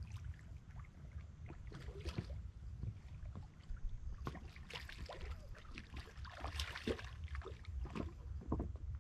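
Steady low outdoor rumble with scattered clicks and rustles of someone moving about and handling fishing gear on the bank, busiest from about two to eight seconds in.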